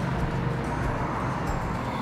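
Background music playing steadily.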